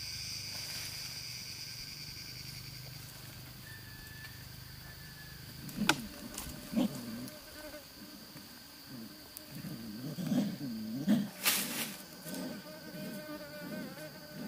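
Insects buzzing: a steady high drone fades over the first few seconds, then a low, wavering buzz comes and goes. Sharp knocks sound about six and seven seconds in, and a louder crack comes about eleven and a half seconds in.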